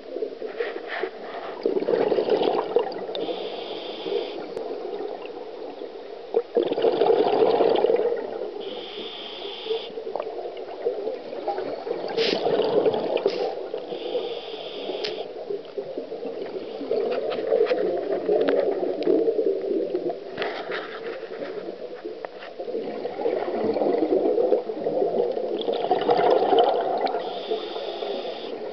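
Scuba breathing through a demand regulator underwater: a short hiss on each inhalation, then a longer, louder burble of exhaled bubbles, repeating about every five to six seconds.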